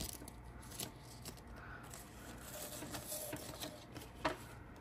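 Faint handling sounds: plant leaves rustling and a few light clicks as fingers move cuttings in a glass vase, with a sharper click about four seconds in.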